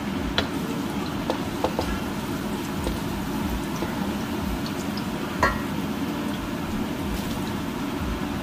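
Garlic frying lightly in oil in a nonstick wok, stirred with a wooden spatula that knocks and scrapes on the pan a few times. The loudest knock comes about five and a half seconds in, over a steady low hum.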